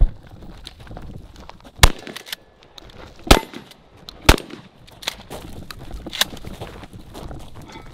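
Remington 870 pump-action shotgun fired four times, the shots spaced about a second to a second and a half apart, with lighter clacks between and after them.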